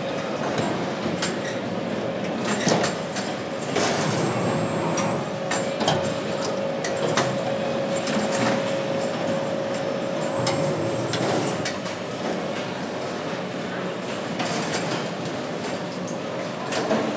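Engine assembly line running: a steady machinery hum with a continuous whine, scattered clicks and clanks from the conveyor and carriers, and a short high beep twice.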